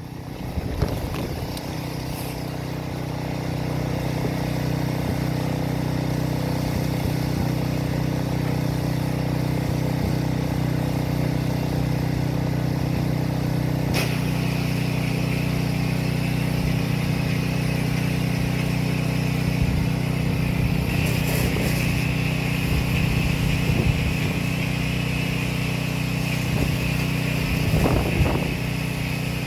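Pressure washer's gasoline engine running steadily, building up over the first few seconds, with the hiss of the water jet growing stronger about two-thirds of the way in.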